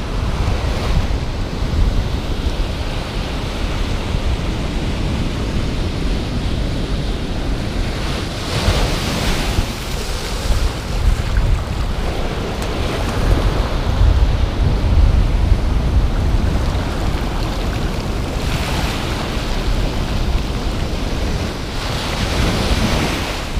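Ocean surf washing up a sandy beach, swelling louder a few times as waves break and run in. Wind buffets the microphone with a low rumble under it.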